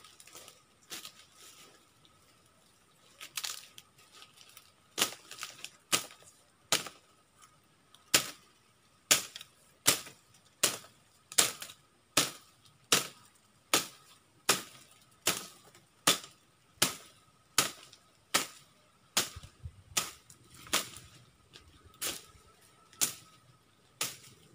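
A series of sharp, evenly spaced strikes or chops, about one every 0.8 seconds. They start faintly a few seconds in and soon become loud and regular, over a faint steady high tone.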